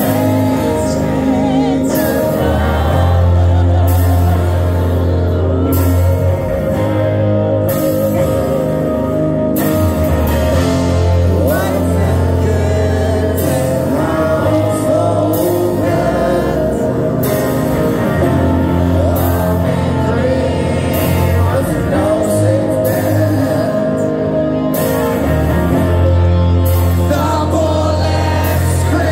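Live rock band performing loud over a club PA: electric guitar, bass and drums with a singer's voice, the drums hitting in a steady beat.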